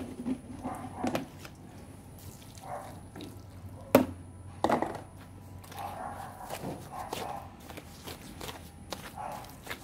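A small hand digging tool chopping and scraping into garden soil: irregular strikes and scrapes, with a sharp knock about four seconds in.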